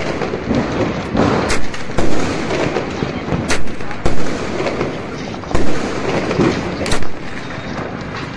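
Aerial fireworks bursting overhead: about six sharp bangs, a second or more apart, over a steady crackle.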